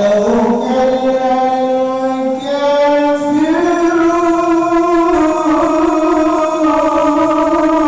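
A single voice chanting Islamic-style, with long drawn-out notes that step up in pitch and swell in level.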